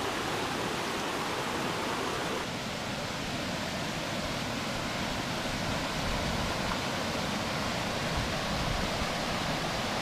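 Small mountain stream pouring over rocks in a little cascade: a steady rush of water.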